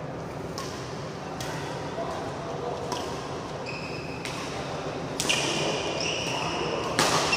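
Badminton rally: rackets striking the shuttlecock about once a second, the loudest hit about seven seconds in, with short high squeaks of court shoes on the mat in the second half.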